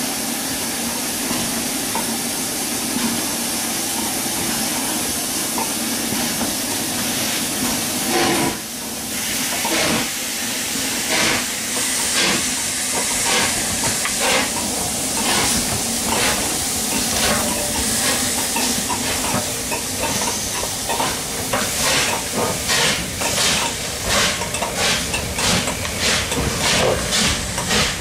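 LMS Royal Scot class three-cylinder 4-6-0 steam locomotive pulling away with a train. It starts with a steady hiss of steam from the open cylinder drain cocks. About eight seconds in, its exhaust beats begin and come steadily faster as it gathers speed.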